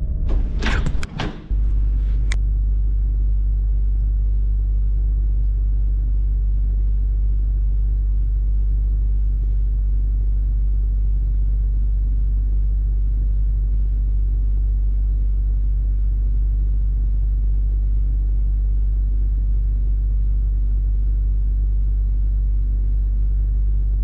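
Car engine idling, a steady low rumble heard from inside the stopped car's cabin.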